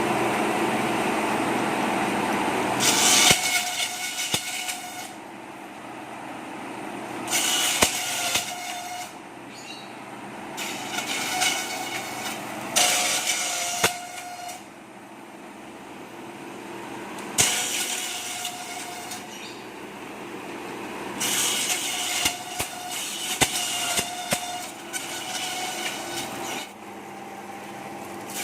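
Satay-skewer bamboo slicer and double planer machine, driven by an 11 hp single-phase electric motor, running steadily, with louder, harsher spells of one to four seconds recurring every few seconds.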